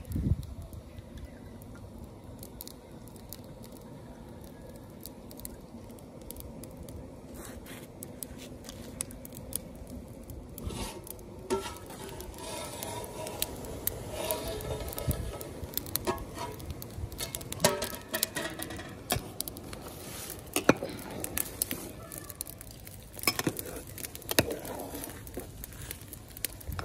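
Water boiling in a steel pot, bubbling and spattering, as lumps of jaggery dissolve in it and are stirred with a metal skimmer ladle. Now and then the ladle clicks against the pot.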